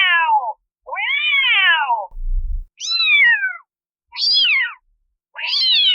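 Kitten meows, one after another: about five calls, each rising then falling in pitch, the later ones higher and shorter. A brief low rumble comes between them about two seconds in.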